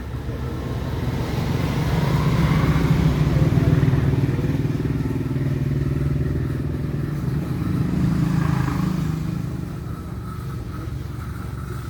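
Low motor rumble that builds up over a couple of seconds and eases off, then swells again briefly near the end.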